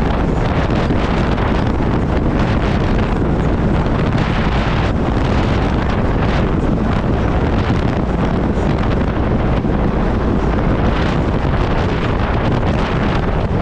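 Loud, steady wind buffeting on the microphone, with a vehicle running underneath.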